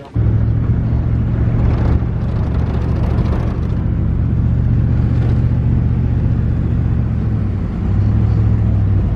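Inside the cabin of a moving passenger van: a steady low engine and road drone, which shifts pitch about eight seconds in.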